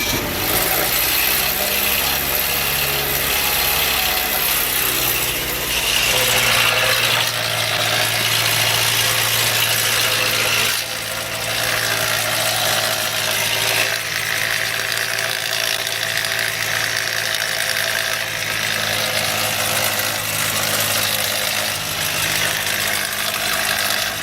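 2007 Nissan Frontier's 2.5-litre engine running just after being restarted, with a mechanical noise in it that is expected to clear once oil pressure comes up after years of sitting. The engine speed rises about six seconds in and falls back about five seconds later.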